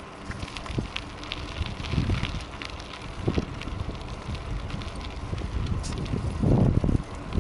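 Wind buffeting the microphone of a camera riding on a moving bicycle, an uneven low rumble with scattered light clicks and crackles. The buffeting grows louder near the end.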